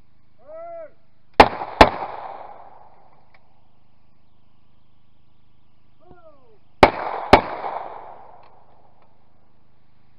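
A short shouted call, then two shotgun shots about half a second apart, ringing out across the field. Another short call about six seconds in is followed by a second pair of quick shots: a clay-target shooter calling for the targets and firing both barrels at each.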